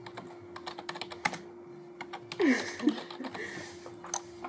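Computer keyboard typing, a run of irregular key clicks as numbers are entered. About halfway through, a brief falling-pitched sound rises above the clicks.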